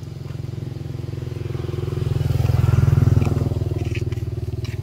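A motor vehicle's engine running with a fast, even pulse as it passes along the road, growing louder to a peak about three seconds in and then easing off.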